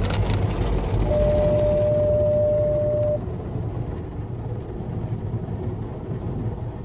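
Automatic car wash heard from inside the car: the rotating brushes and machinery running over the car, with a few slaps on the glass at the start and a steady whine for a couple of seconds. It drops quieter about three seconds in as the brushes move away from the car.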